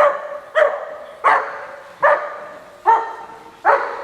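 A dog barking steadily and repeatedly, six barks in a regular rhythm about two-thirds of a second apart.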